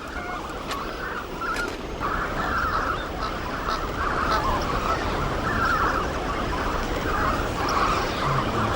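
A large crowd of flamingo chicks calling all at once: a dense, unbroken chorus of overlapping calls.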